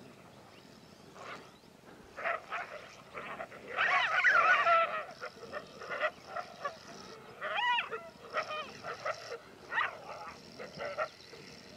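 Ethiopian wolves calling as they mob honey badgers near their den. A run of short, pitched calls builds to a dense, overlapping burst about four seconds in, the loudest part, then breaks into scattered single calls. One call just before eight seconds wavers up and down in pitch.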